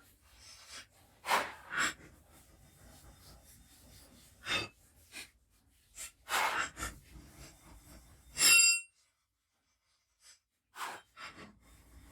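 Scattered knocks and scrapes of tools and parts being handled, with a short metallic ring about eight and a half seconds in.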